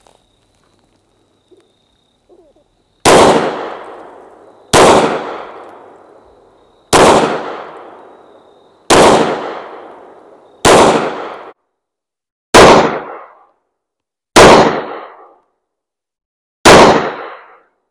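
IWI Masada S 9mm micro-compact pistol firing eight single shots, slow and deliberate, about two seconds apart; the first comes about three seconds in. Each shot is a sharp crack that rings out and fades over about a second.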